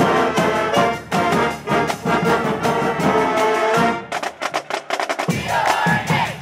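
Marching band playing a brass-heavy tune, with alto saxophones close by. About four seconds in the tune stops for a quick run of sharp percussion hits, then the players break into a shouted chant with clapping near the end.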